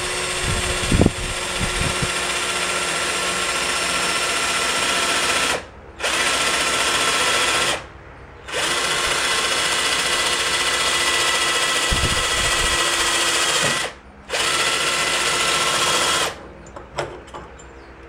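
Cordless 18 V drill running steadily as it bores into a metal tube clamped in a bench vise. It stops briefly three times and stops for good near the end.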